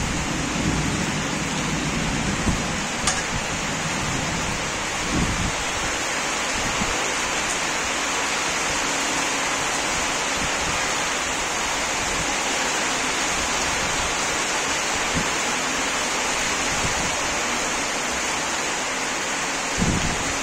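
Rain falling steadily: a constant, even hiss, with a few brief low thumps near the start and just before the end.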